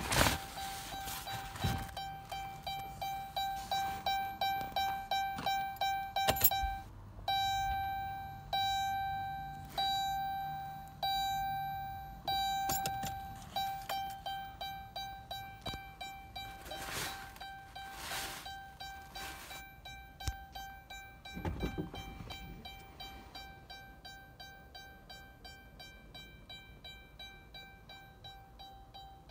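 Dodge Caravan's warning chime dinging over and over on a single tone: about two dings a second, then slower, longer dings for several seconds, then quick dings again that fade toward the end. A few knocks and rustles from handling the interior, the loudest just after the start and around two-thirds of the way in.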